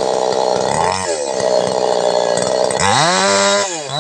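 Two-stroke New West 628 chainsaw cutting into a jengkol tree trunk, its engine held down at a steady lower pitch under the load of the cut. About three seconds in it revs up sharply, then dips briefly near the end.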